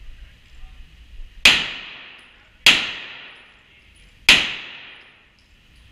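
Three pistol shots, spaced about a second to a second and a half apart, each ringing with echo in an enclosed indoor range.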